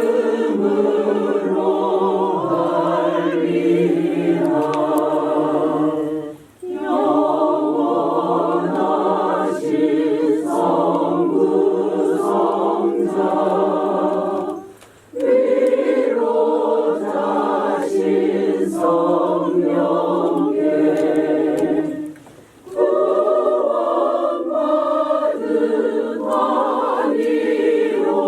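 Church choir singing a slow hymn in long phrases, with a short breath break three times.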